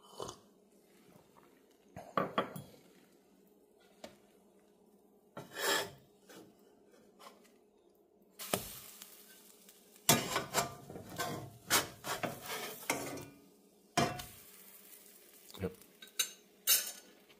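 A spatula scraping and clinking against a steel frying pan as pancakes are turned over, in scattered strokes with a longer stretch of scraping from about eight to thirteen seconds in.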